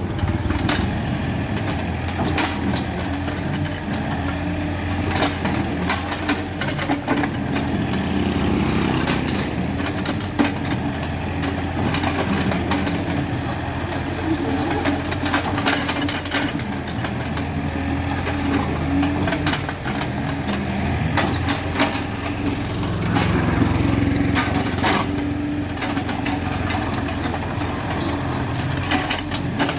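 Excavator's diesel engine running steadily under work, with frequent sharp clicks and knocks throughout.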